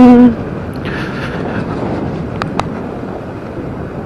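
Steady wind and road noise on the microphone of a moving vehicle, after a man's sung line trails off at the very start. There are two short clicks about two and a half seconds in.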